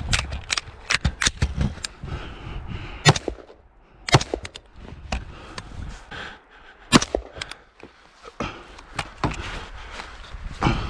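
Gunshots fired at irregular intervals, a few loud sharp cracks among many fainter ones.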